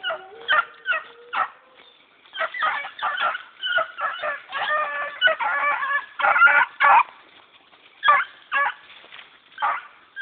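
Eleven-week-old Walker hound pups baying on a rabbit's track in short, high bawls. Several voices overlap in a continuous run of cry through the middle, with single calls before and after: the pack in full cry on a hot trail.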